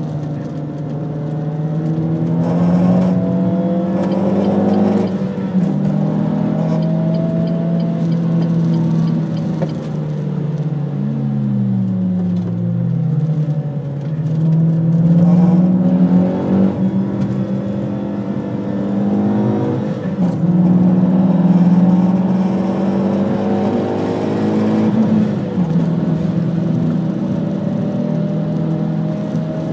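Renault Mégane R26's engine heard from inside the cabin, repeatedly climbing in pitch as it accelerates and dropping back at gear changes, with a deep drop and climb about twelve seconds in.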